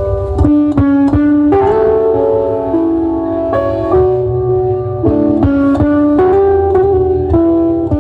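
Music played loud through a sound system: a plucked, guitar-like melody of changing notes over a steady deep bass line.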